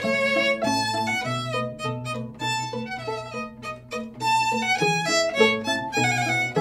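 String quartet of handmade birdseye maple instruments (two violins, viola and cello) playing a passage of quick, separate notes over a moving cello line.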